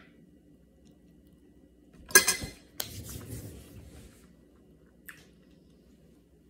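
Metal fork set down on a plate: one sharp, ringing clatter about two seconds in, followed by a softer click or two.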